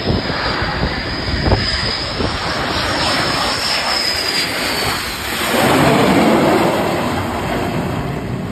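F/A-18 Super Hornet's jet engines with a high whine as it comes in over the carrier deck. About five and a half seconds in, the engine noise rises to its loudest as the jet touches down and is caught by the arresting wire.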